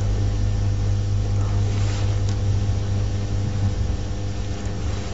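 Steady low electrical hum with a stack of even overtones, with two faint short ticks about two seconds in.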